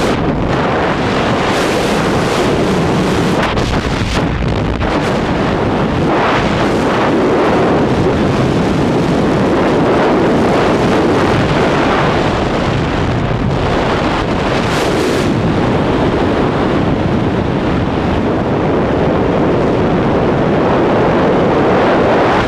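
Loud, steady wind rush of tandem skydiving freefall, buffeting the microphone of a handheld camera.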